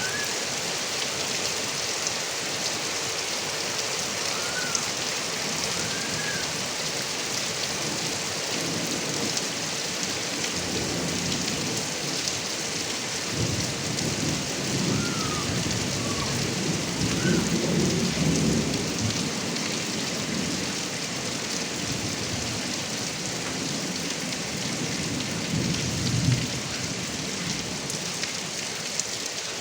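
Steady heavy rain falling and running off a roof gutter spout. Thunder rumbles low through the middle, with one louder crack near the end.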